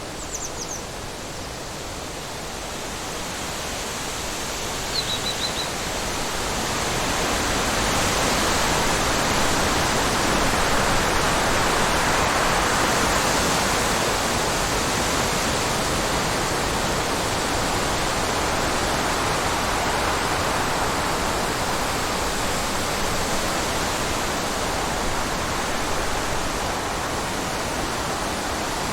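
Wind blowing in a steady rush that swells louder over the first several seconds and then holds. Two short, high chirps come in the first few seconds.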